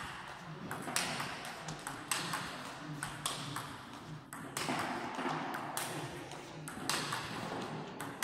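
Table tennis ball being struck with a rubber-faced bat on forehand drives and clicking off the table, in a steady rhythm of about one hit a second.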